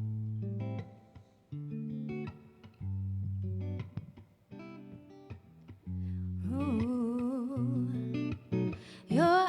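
Guitar picking a slow intro of sustained chords. About two-thirds of the way through, a wordless sung vocal line with vibrato comes in over it and gets louder near the end.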